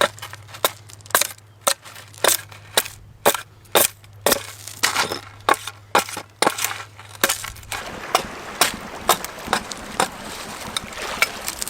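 Repeated sharp blows of a hand tool striking material, about two a second in an even rhythm.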